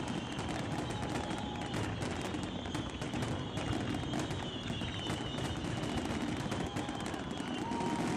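Fireworks going off in a dense, rapid series of crackling pops, like a fusillade, with faint steady whistling tones underneath.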